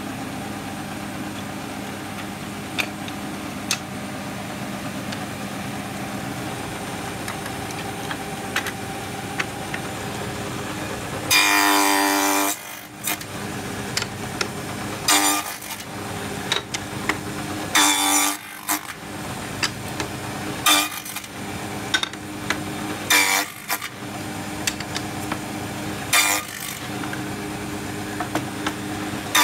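Table saw running steadily while its blade cuts box-joint (finger-joint) slots into the end of a spruce board held upright in a jig. One long cut comes about a third of the way in, then shorter cuts follow every two and a half to three seconds, each a loud rasping whine as the wood meets the blade.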